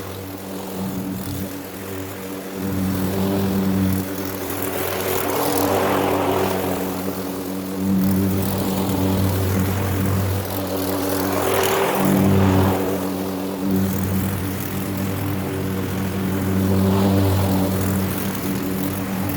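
Walk-behind bagging lawn mower running steadily while cutting St. Augustine grass, with swells of rushing noise every several seconds.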